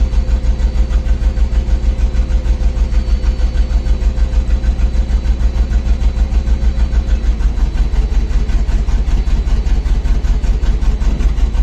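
Carry deck crane's engine idling steadily, with an even low pulsing beat and a faint whine that drops slightly about seven seconds in.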